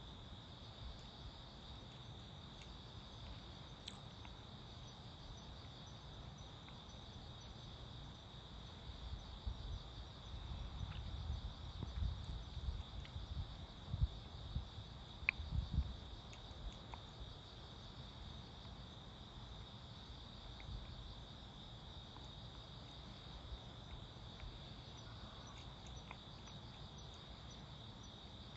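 Crickets chirping in a steady, continuous high trill. A few low thumps and rumbles come through about a third of the way in, and these are the loudest sounds.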